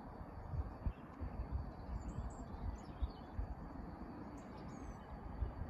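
Small birds chirping a few short times, over a low, uneven rumble.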